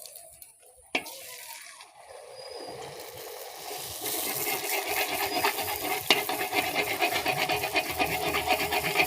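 Atta golgappa puris deep-frying in hot oil, a dense crackling sizzle that builds up from about two seconds in and then holds steady as the puris puff up.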